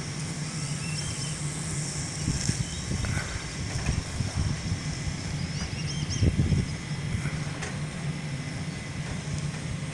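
Fire truck engine running steadily with a low drone, swelling briefly a little past six seconds in. A few faint high chirps come about five seconds in.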